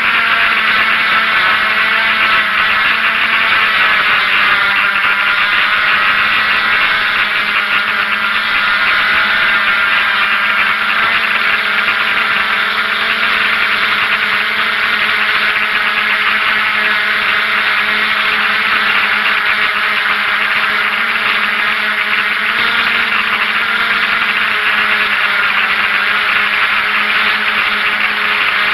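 DJI F550 hexacopter's six electric motors and propellers buzzing steadily as it hovers, heard up close from its onboard camera. Several tones hold steady, wavering a little in pitch as the motors adjust.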